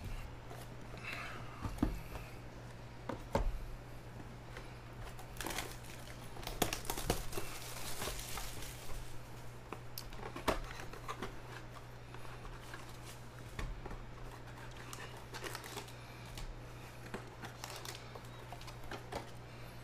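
Panini Prizm Draft Picks basketball hobby box being opened by hand: scattered crinkling, tearing and tapping of the wrapped cardboard box, then rustling of foil card packs as they are pulled out, with a longer rustling stretch about halfway through. A steady low hum runs underneath.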